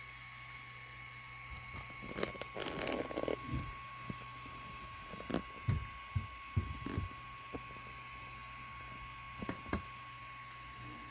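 3D printer running at the start of a print: a steady hum with a thin high whine, broken by scattered clicks and knocks about two seconds in, again between five and seven seconds in, and once near the end.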